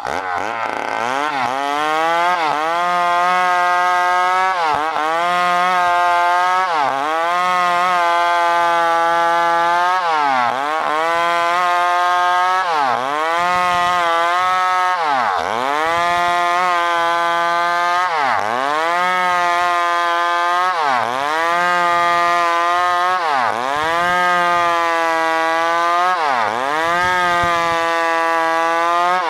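New West PRO 888 two-stroke chainsaw running at high revs while sawing wood. Its pitch dips sharply and recovers about every two to two and a half seconds, a dozen times or so.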